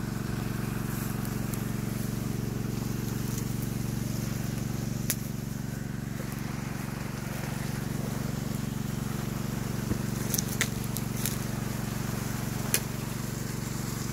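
A small engine running steadily at a constant speed, with a few sharp clicks.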